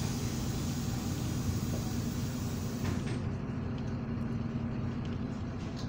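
MAZ-203 city bus's engine running steadily as the bus drives, heard from inside the passenger cabin, with a high hiss over the first three seconds that then stops.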